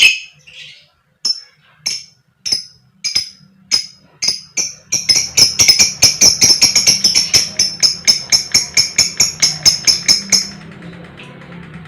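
Lovebird calling with sharp, shrill chirps: a loud call at the start, then single chirps about half a second apart that quicken about five seconds in into a fast run of about five chirps a second, stopping shortly before the end. This is the spaced 'ngetik' ticking building into 'ngekek' chatter.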